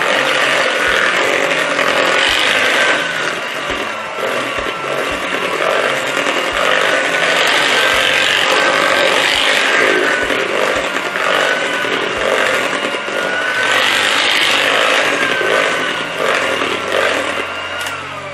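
Electric hand mixer running steadily on speed 2, a motor whine that wavers slightly as its twin beaters work through creamed butter, sugar and eggs.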